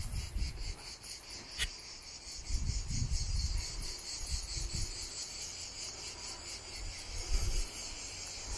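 Insects chirring in a dense, high, finely pulsing drone, with intermittent low rumbles underneath.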